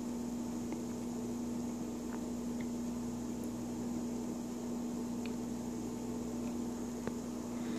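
Steady room background: a constant electrical or mechanical hum with an even hiss. A few faint light clicks, one a little louder about seven seconds in.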